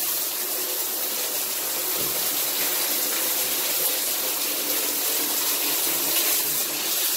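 Shower head running, spraying a steady stream of water onto a tiled shower floor.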